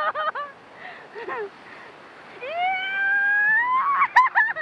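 Rafters yelping and whooping in excitement while riding whitewater rapids: a burst of short high shrieks, then one long rising whoop about two and a half seconds in, then more short shrieks near the end, over the rush of the rapids.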